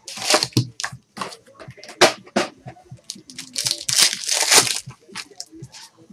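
Wrapper of a sealed football trading-card pack being torn open and crinkled by hand: a series of sharp tearing and crinkling rips, loudest about four to five seconds in.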